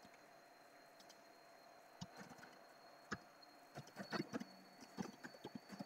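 Computer keyboard keys tapped in short, irregular runs of faint clicks, starting about two seconds in.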